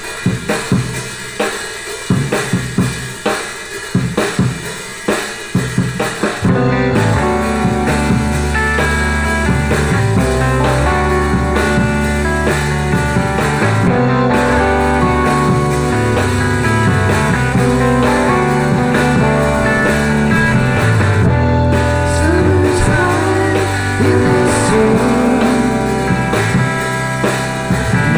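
Background music: a drum intro of separate hits for about the first six seconds, then a full band with bass and guitar comes in and plays on steadily.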